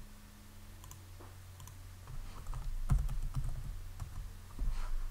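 Typing on a computer keyboard: a short run of keystrokes about halfway through, with a few lighter clicks before and a couple more near the end.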